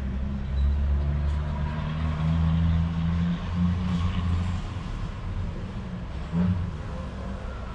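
A low rumble that swells and eases.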